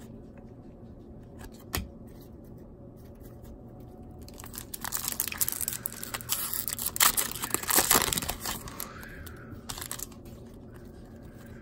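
Foil wrapper of a baseball card pack crinkling and tearing open, starting about four and a half seconds in and lasting about five seconds, loudest near the middle. A single light click comes a couple of seconds before it.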